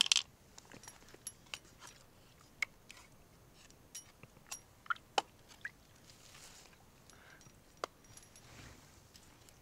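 Close-up handling noises: a short clatter at the start, then irregular light clicks and taps of hard objects, with soft scraping rustles about six and a half seconds in and again near nine seconds.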